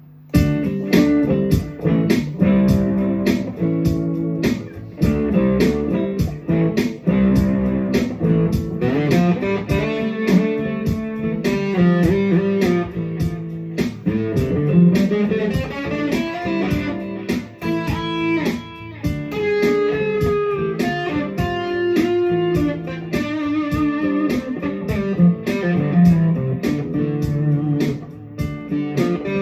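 Electric guitar playing blues-style melodic lines over a steady beat of about two strokes a second.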